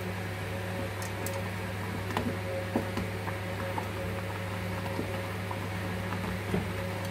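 A steady low hum with a few faint clicks and knocks of kitchen utensils scattered through it.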